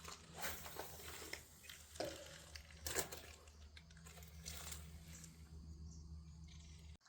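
Close handling noise from a spinning rod and reel: scattered clicks, rustles and a few sharp knocks over a steady low hum, cut off abruptly near the end.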